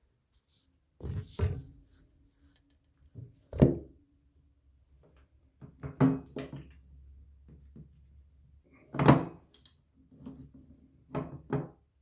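Irregular knocks and clunks from handling and fitting the parts of a handheld shower head, about half a dozen hits with short ringing tails, the loudest about three and a half and nine seconds in.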